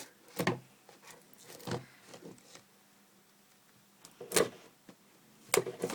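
Small cardboard product box being handled and picked at to open it: scattered short scrapes and taps, with a quiet pause in the middle.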